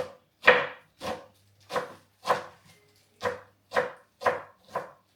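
A knife chopping crisp, freshly picked spinach on a cutting board, about two crunchy cuts a second with a brief pause midway.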